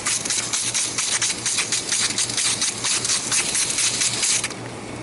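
Water and glycol left under pressure in an opened chiller line spraying and sputtering out in a loud, crackling hiss that cuts off abruptly about four and a half seconds in.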